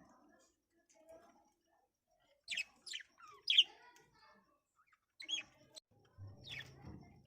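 Budgerigars giving short, sharp chirps that fall quickly in pitch: a quick run of three about two and a half seconds in, then a couple more later.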